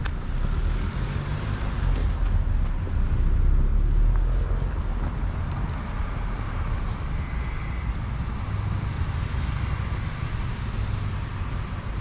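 Street traffic: the mixed noise of vehicles on a city road, one passing close and swelling loudest about three to four seconds in, then easing back to a steady rumble.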